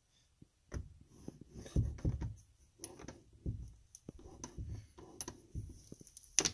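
A door being pushed and forced shut by hand: irregular scraping and rubbing with dull bumps, and a sharp knock near the end as it closes.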